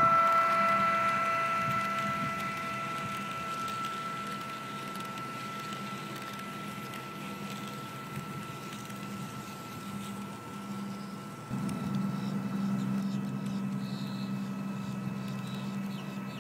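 Märklin HO-scale electric model train running past: a steady high motor whine that slowly fades, over a continuous hum and fine rattle of the wheels on the track. The hum and rattle get suddenly louder about eleven and a half seconds in.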